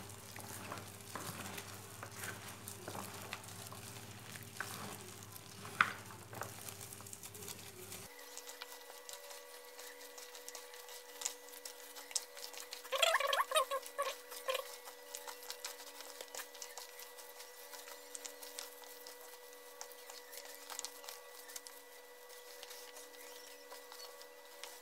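A gloved hand mixing shredded radish, carrot and spring onion with chili powder in a plastic basin: soft, irregular wet squishing and rustling of the vegetables and the plastic glove. Around the middle there is a brief, louder pitched sound.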